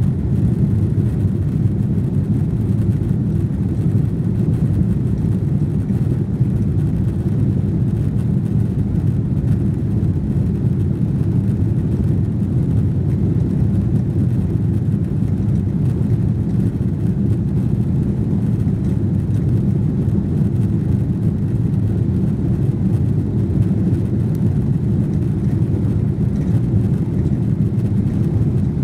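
Steady low rumble of a Boeing 777's jet engines and rushing air, heard inside the passenger cabin during takeoff.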